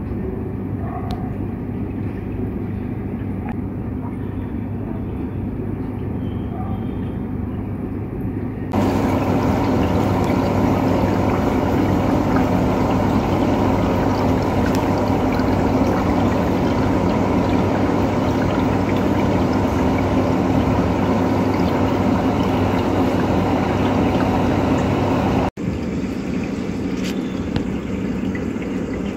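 A steady background soundtrack of dense, continuous noise with a low hum under it. It turns suddenly louder and brighter about nine seconds in, and cuts out for an instant near the end before carrying on quieter.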